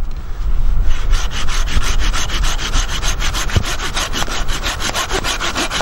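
Bahco Laplander folding saw cutting through wood in quick, even back-and-forth strokes, starting about a second in.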